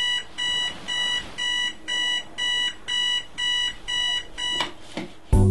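Digital alarm clock beeping, a steady electronic beep about twice a second. It stops shortly before the end, and music starts right after.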